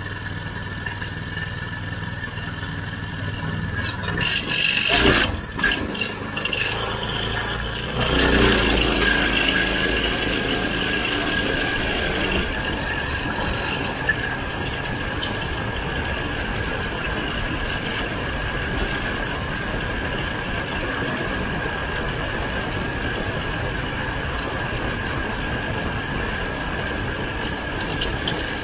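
Racing kart's engine idling, then revving in loud bursts about four seconds in as the kart pulls away, and from about eight seconds on running steadily at high revs at speed, heard from the onboard camera on the kart.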